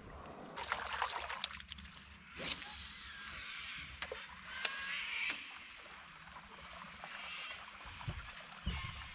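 Light water trickling and splashing against a small fishing boat, with several sharp clicks in the first half.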